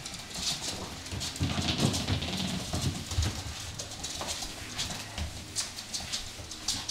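Siberian husky puppy scuffling with a Swiffer sweeper on a hard floor: claws clicking and scrabbling, with the sweeper pad scraping and knocking as she bites and tugs at it. The busiest stretch is about 1.5 to 3.5 seconds in.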